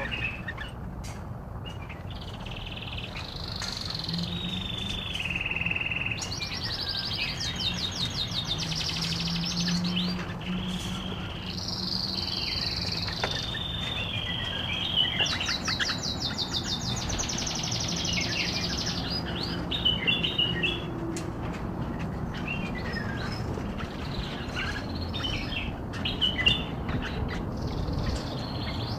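Bulbuls singing: long, warbling song phrases with rapid trills in the middle, then shorter scattered notes, over a low steady background hum.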